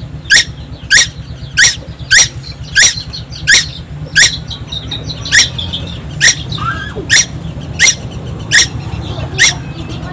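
A young tuwu bird calling non-stop: a sharp, high, down-sweeping note repeated about every two-thirds of a second, with a few softer twittering notes midway, over a low steady hum.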